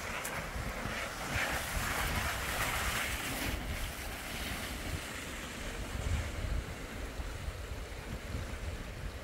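Storm wind buffeting the microphone in a low rumble, under a steady hiss of wind and rain that is strongest in the first few seconds.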